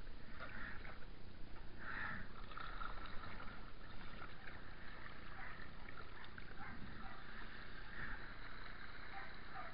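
Kayak paddle strokes in canal water, with water sloshing and gurgling along the hull; the splashes are strongest at first, then settle into a steadier wash.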